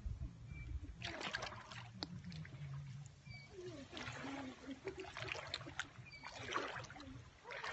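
Shallow seawater splashing and trickling in several short bursts as hands work in a tidal pool picking out sea urchins.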